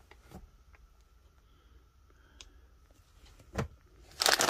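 A few faint clicks and one sharper tap in a quiet room, then, near the end, loud crinkling of a plastic snack bag being picked up and handled.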